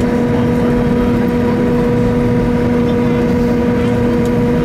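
Cabin noise inside a Boeing 737 taxiing after landing: the engines run at idle under a steady rushing noise, with an even hum that holds one pitch throughout.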